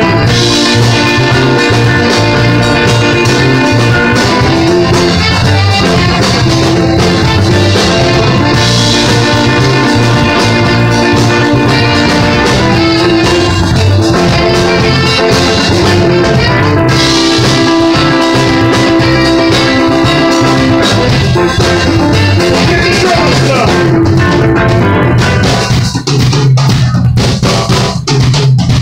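Live band playing loud amplified music with electric guitar and drum kit. Near the end the held notes drop away and the drums carry on with sharp hits.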